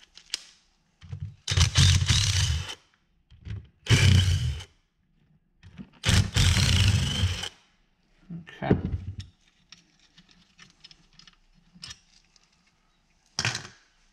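Ryobi cordless impact driver hammering in three bursts of a second or so each, backing out the tight screws that hold the electric window motor to its regulator assembly. A couple of shorter clatters follow near the end.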